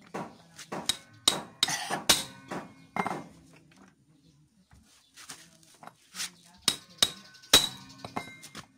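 Hammer blows on a manual impact driver, sharp metallic strikes with a short ring, driving it to break loose a Phillips screw on a scooter's air cleaner cover. About six blows come in the first three seconds, then a pause, then about five more near the end.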